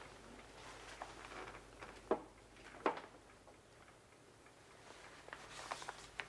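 A few light, irregular knocks and clicks, as of objects being handled, over a faint steady hum of room tone; the loudest come about two and three seconds in, with a quick cluster near the end.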